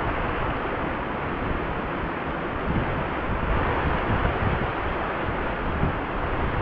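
Wind buffeting the microphone, a rumbling, uneven low noise, over the steady rush of a wide river flowing past.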